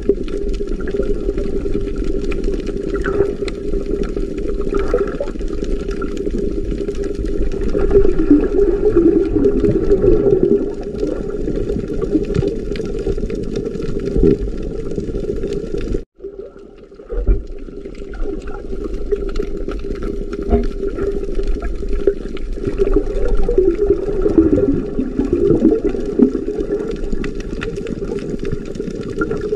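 Muffled underwater water noise on a submerged camera moving through the sea, a steady low rushing with swirling surges. It cuts out suddenly for about a second around the middle.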